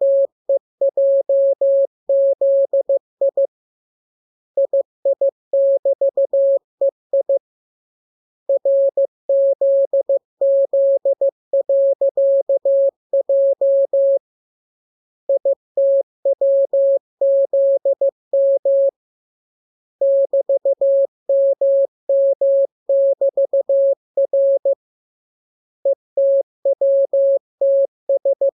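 Morse code sent as a single steady-pitched audio tone keyed into dots and dashes, in groups of characters separated by short pauses.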